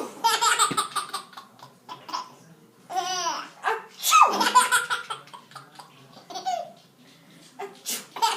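A baby about seven and a half months old laughing in repeated bursts of belly laughs and giggles. An adult's pretend sneezes set the laughing off, at the start and about four seconds in.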